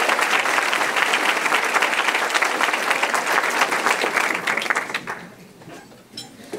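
Audience applauding: dense, steady clapping that dies away about five seconds in, followed by a couple of light knocks near the end.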